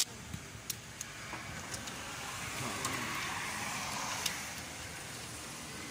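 A car passing by on the street, its noise swelling and then fading over a couple of seconds, with a few light clicks.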